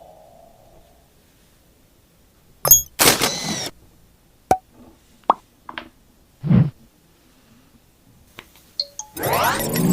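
Phone packaging and accessories handled during an unboxing: sharp clicks and taps, a brief sliding rustle, and a soft thud. Near the end comes a louder swell of rising tones.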